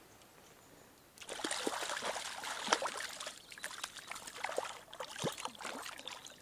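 A hooked trout thrashing in shallow stream water as it is taken by hand, making a quick, irregular run of splashes and slaps that starts about a second in.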